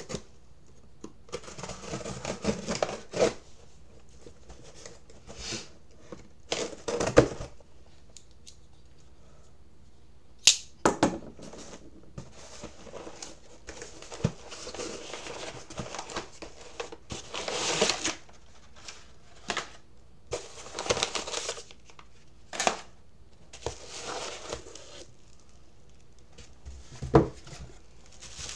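A cardboard shipping box being opened: a knife slitting the packing tape, then cardboard flaps torn and handled, in irregular scratchy bursts with a few sharp knocks. Bubble wrap rustles near the end as the wrapped item is lifted out.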